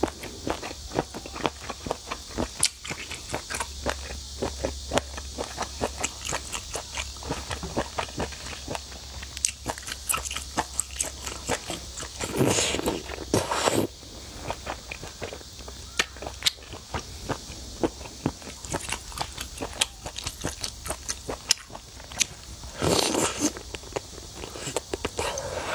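Close-miked mouth sounds of eating seafood from a spicy broth: wet chewing and biting with many small clicks and smacks, and two longer sucking slurps, about halfway and near the end, as food and sauce are sucked from the fingers.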